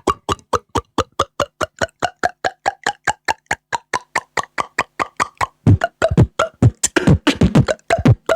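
Beatboxed water-drop sound made with the mouth: quick, even plops about five a second, their pitch wandering up and down. About two thirds of the way in, louder, deeper plops join and the rhythm becomes uneven.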